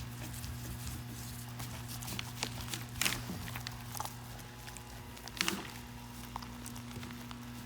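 Scattered soft clicks and rustles from handling the resin-wet felt sleeve and its plastic, over a steady low hum.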